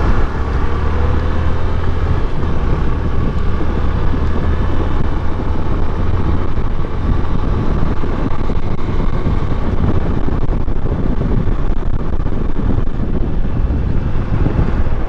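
Wind buffeting a BOYA BY-M1 lavalier microphone on a moving motorcycle: a loud, steady rumble, heaviest in the first several seconds, with the motorcycle's engine and road noise underneath.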